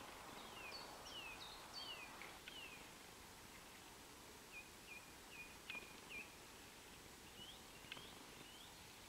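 Faint birdsong over a quiet outdoor hush: a quick run of short falling chirps in the first couple of seconds, then a few short repeated notes and some rising calls near the end.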